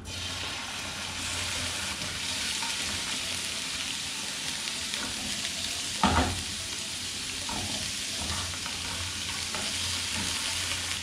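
Chopped food sizzling in hot sesame oil in a frying pan, the hiss starting suddenly as the pieces go in and then holding steady. A single short knock about six seconds in, as the pan or its contents are moved.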